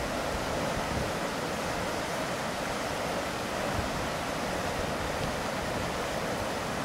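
Steady rush of churning water pouring out of a steam pumping station's discharge outlets.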